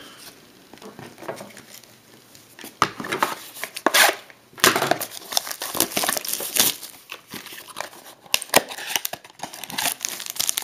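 Trading card pack wrapper and packaging crinkling and tearing as a pack is opened by hand, in irregular crackles that get busier about three seconds in.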